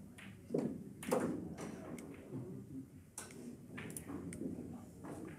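Pool balls clicking: a cue tip striking the cue ball and balls knocking together, several sharp separate clicks, the loudest about a second in.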